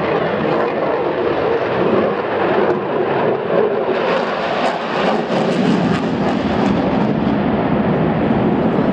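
A display aircraft's engine noise, a loud, steady rushing that deepens a little over halfway through as the aircraft passes.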